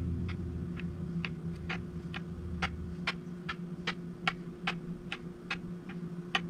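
Metal fret rocker rocking across the frets of a Telecaster's maple neck, clicking about twice a second as it is checked for high frets. A steady low hum runs underneath.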